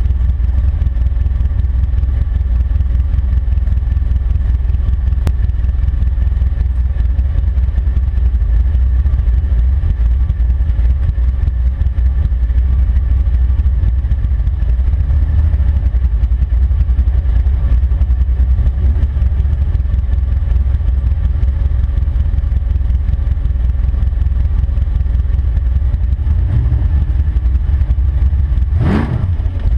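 Chevrolet Nova's engine idling, heard from inside the cabin as a loud, steady low rumble. Near the end it is revved once in a quick rising blip.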